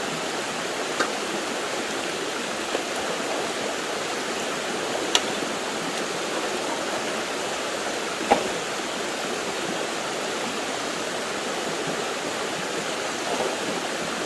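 Steady rushing of a nearby stream. A few short sharp clicks or knocks break through it, the loudest about eight seconds in.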